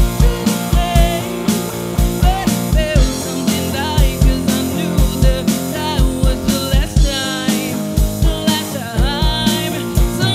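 Live band playing: a woman singing over electric guitar, electric bass and a drum kit, with a steady kick-drum beat.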